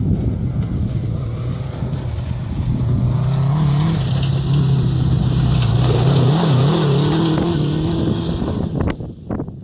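Dune buggy with a Suzuki RF600 four-cylinder motorcycle engine driving closer over rough ground. The engine note rises and falls with the throttle, then drops away sharply near the end as the buggy passes.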